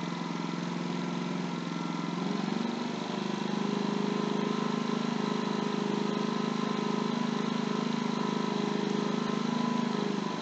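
Ryobi 4000-watt open-frame inverter generator running with no load. About two and a half seconds in its engine speeds up and runs steadily at the higher speed as the auto idle is switched off, which makes the low idle chatter, almost like a valve tap, go away. Near the end the engine drops back down in speed.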